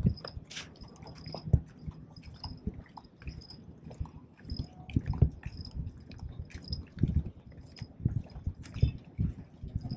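Footsteps on the wooden planks of a pier deck, a steady walking pace of soft thuds with light clicks.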